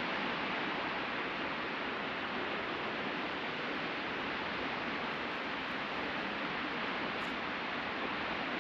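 Sea surf washing onto a beach, heard as a steady, even hiss with no separate wave crashes standing out.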